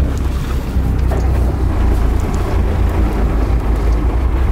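Steady low rumble on board a fishing boat at sea, with wind buffeting the microphone.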